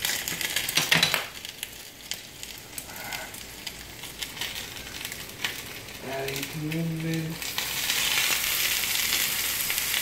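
Ground beef sizzling in a hot frying pan, with a few sharp clicks in the first second. The sizzle grows louder and hissier from about seven and a half seconds in.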